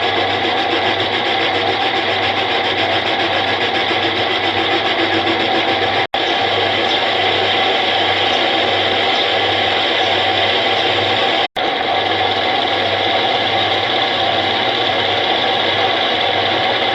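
Homemade metal lathe running steadily under power, an even machine whine over a pulsing low hum. The sound drops out for an instant twice, about six and eleven seconds in.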